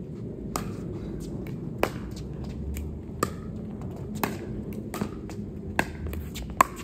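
Pickleball rally: paddles striking a plastic pickleball back and forth, about six sharp pops a second or so apart, the loudest near the end, with fainter clicks between them.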